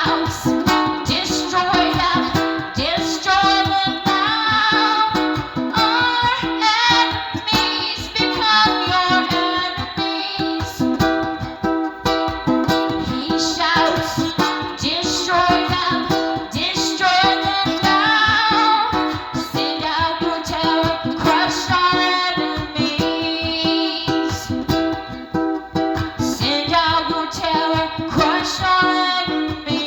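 Music: a song carried by plucked acoustic strings, with a melody line over a steady rhythm.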